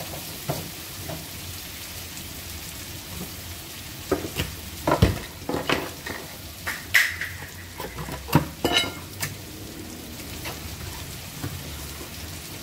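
Diced vegetables sizzling steadily in a frying pan, with a scatter of sharp clicks and knocks between about four and nine seconds in.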